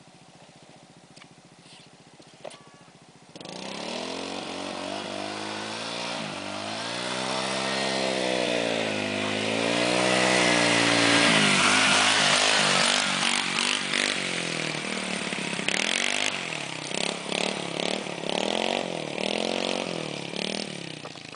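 ATV (four-wheeler) engine: faint at first, then about three seconds in it comes in loud, its pitch rising and falling as the throttle is opened and eased repeatedly. Later the revs turn choppy, with short on-off blips of throttle, and the engine drops off near the end.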